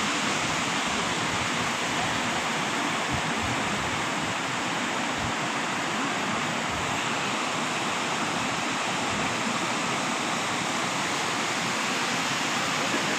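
A river in flood, its rain-swollen water rushing steadily.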